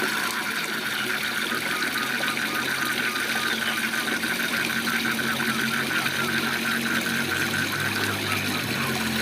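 Waterfall rushing steadily under a chorus of frogs calling in rapid, evenly repeated croaks.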